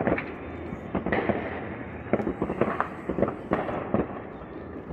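Fireworks going off across a city, many irregular bangs and pops near and far, roughly one or two a second.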